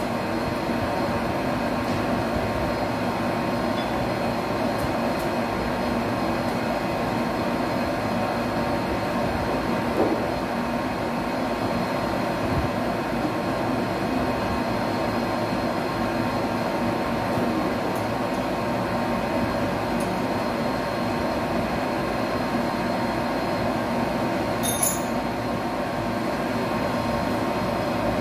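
Metal lathe running steadily while a part is turned: an even motor-and-gearbox drone with a steady whine. A short high-pitched squeal comes near the end.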